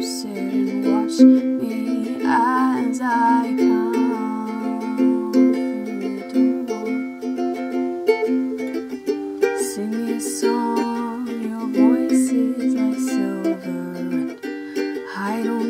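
Ukulele playing steady picked chords, with a few short wordless vocal phrases laid over it.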